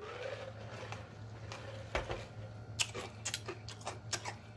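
A man drinking from a large glass mug, a single knock about two seconds in, then a quick run of sharp wet lip smacks and mouth clicks from about three seconds in.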